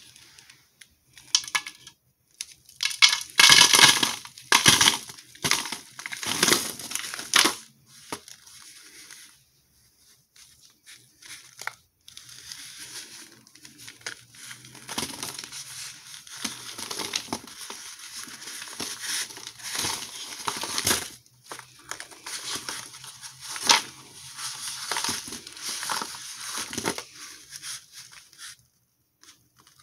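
Cardboard box of packed cornstarch being torn open and the chalky chunks crunching and crumbling as they are broken out. Loud bursts of tearing and crunching a few seconds in, then after a short lull a steadier run of crumbling and crinkling.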